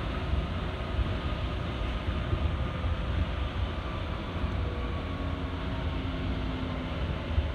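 Osaka Monorail straddle-beam train running at speed, heard from inside the front cab: a steady rumble of its rubber tyres and running gear on the concrete beam, with a faint motor whine drifting slowly down in pitch.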